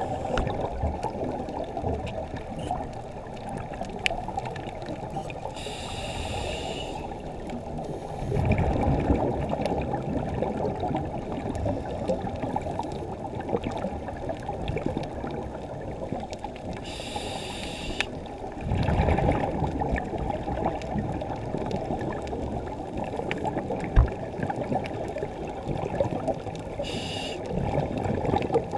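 Muffled underwater noise heard through a dive camera's housing, with a scuba diver breathing through a regulator: three times a short hiss of inhalation, each followed by a louder gurgling rush of exhaled bubbles.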